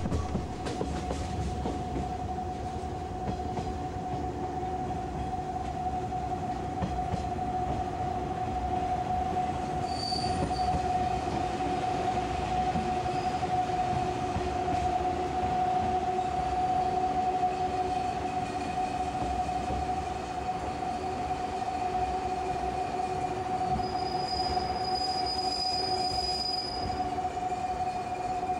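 A 185-series electric train standing at the station, its onboard equipment giving a steady mid-pitched whine with a fainter lower hum over a low rumble. A short high tone sounds about ten seconds in, and a longer one near the end.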